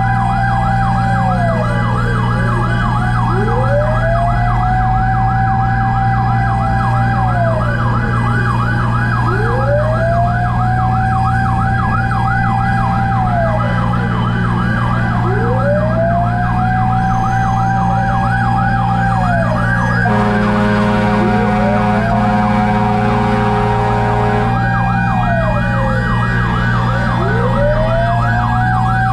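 Fire truck sirens: a fast yelp and a slow wail that rises and falls about every six seconds, both running at once over a steady low drone. About two-thirds of the way in, a steady horn blast sounds for about four seconds.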